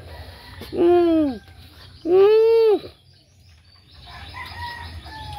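Two loud, drawn-out hooting calls close by, each rising then falling in pitch, about a second apart.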